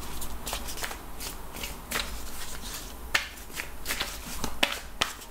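A tarot deck being shuffled overhand, hand to hand: a run of quick, irregular card slaps and clicks.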